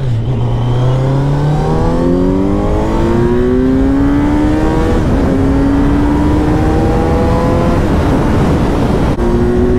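Kawasaki Z900's inline-four engine under hard acceleration at full throttle, its note climbing steadily through the gears, with an upshift right at the start and a short break for another gear change near the end. Wind rushes over the helmet microphone as the speed passes 150 km/h.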